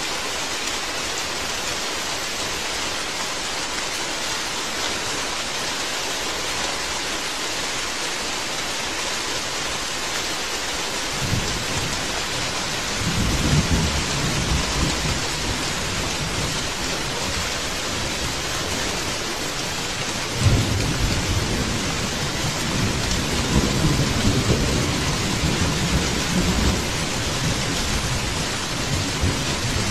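Steady rain falling, with thunder rolling in twice: a rumble building about eleven seconds in, and a sharper crack about twenty seconds in that rumbles on for several seconds.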